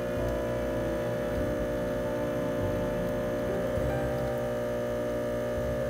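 Breville Infuser espresso machine's pump running as a shot brews at full pressure: a steady, even hum.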